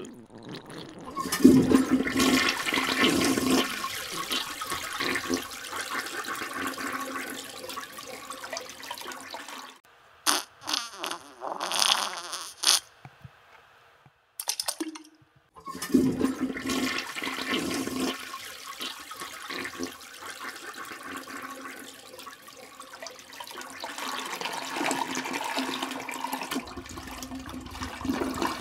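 Toilet flushing: a long rushing flush, then a break with a few short splashy bursts, then a second long flush.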